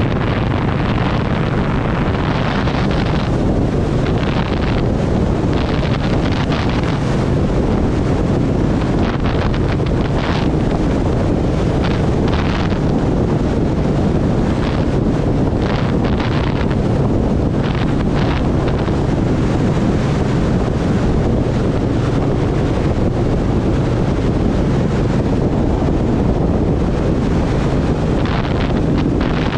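Heavy wind noise buffeting the microphone over the steady running of an Indian Scout Sixty's V-twin engine on the move.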